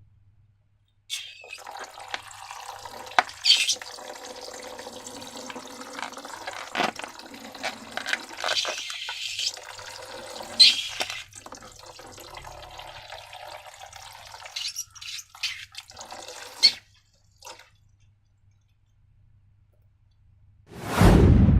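Liquid being poured and trickling into a container during slime making, uneven and wet with scattered clicks, stopping about three-quarters of the way through. A brief loud thump comes near the end.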